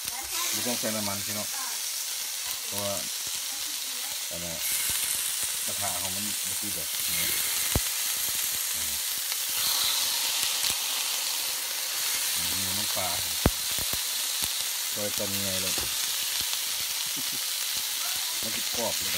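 Boiled, sliced pork belly sizzling steadily in a hot frying pan with no oil added, its fat starting to render. The sizzle grows louder as more pieces go in, with two sharp clicks along the way.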